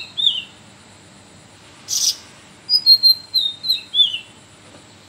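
Caged cucak rawis singing: short, clear whistled phrases of notes sliding down in pitch, with a single short harsh burst about two seconds in.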